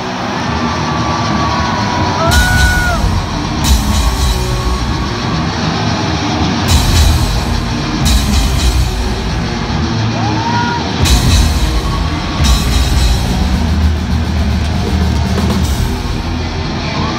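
Heavy metal band playing live through a loud arena PA, recorded close to the stage: distorted electric guitar riffing over a drum kit, with heavy low drum-and-bass hits coming in every few seconds.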